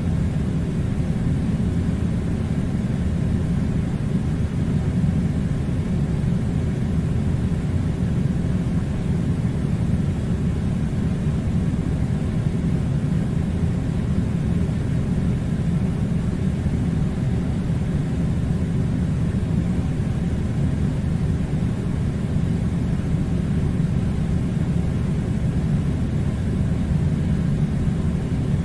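Air conditioner running with a steady low hum and rush of air, unchanging throughout.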